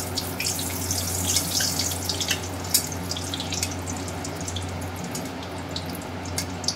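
Dried red chillies and bay leaves sizzling in hot mustard oil in an aluminium kadai as a tempering (phoron), with quick, uneven crackles over a steady low hum.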